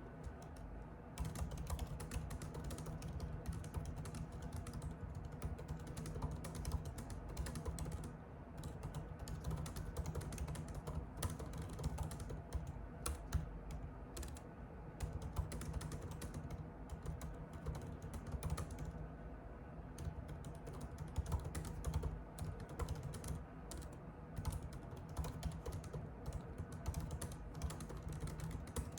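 Typing on a computer keyboard: a fast, irregular run of key clicks that starts about a second in and carries on with a few brief pauses.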